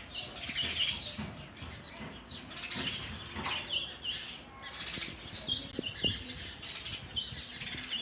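Sparrow feeding its nestlings at the nest: short high chirps repeated in quick clusters every second or two, over a constant rustle of wings and nest straw.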